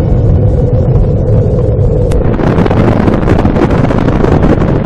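Loud, continuous rumbling roar of an atomic bomb explosion, heavy in the low end, turning harsher and noisier about two seconds in.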